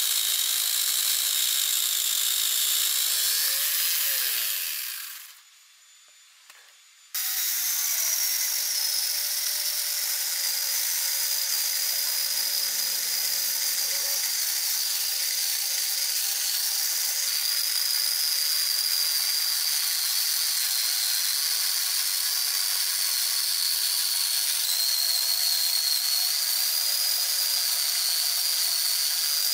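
Angle grinder driving a chainsaw adapter's chain through a log, its motor running with a steady high whine. The sound fades out about five seconds in and stops for about two seconds. It then comes back suddenly at full level and runs steadily.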